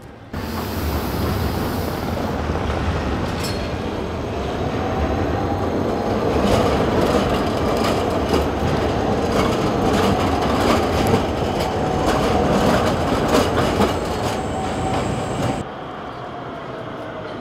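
Škoda 14T electric tram passing close by: the rumble of steel wheels on the rails grows louder and then fades, with a motor whine that rises and falls. A run of sharp clicks from the wheels on the track comes in the middle. The sound drops suddenly near the end.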